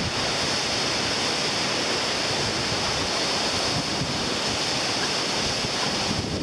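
Tropical-storm wind rushing through forest trees along with rain, a loud, steady, even noise, with some wind buffeting on the microphone.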